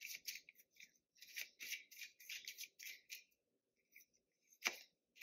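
Tarot cards being handled and shuffled: a faint run of short swishes for about three seconds, then a single sharp tap near the end.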